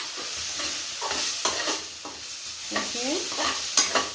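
A spatula stirring and scraping a thick tomato-and-spice masala in a steel kadhai, irregular scrapes over a steady sizzle of frying oil: the masala being fried until the raw tomato is cooked out.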